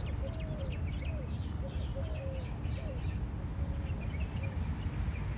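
Several birds calling at once: many quick high chirps mixed with lower slurred notes, over a steady low rumble.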